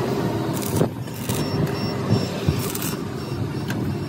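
A vehicle engine running steadily, with a few sharp knocks and a short run of high beeps about a second and a half in.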